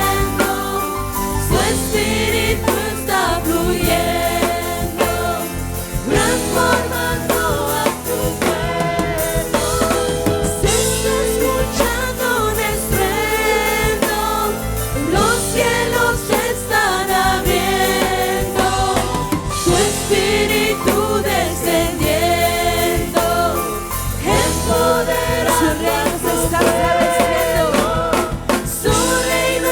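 Christian worship song: singing voices over instrumental backing.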